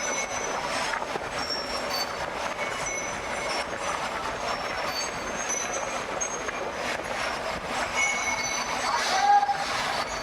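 Steady metallic clatter with many short, high squeals of metal rubbing on metal, and a louder squeal a little over nine seconds in.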